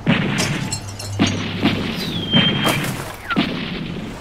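Gunfire in a shootout: about six shots at uneven intervals, with a short falling whine about two seconds in.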